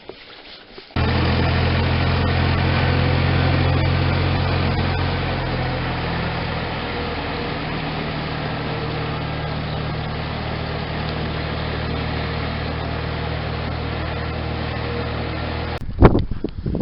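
A motor running steadily with a low hum. It comes in abruptly about a second in and cuts off abruptly shortly before the end.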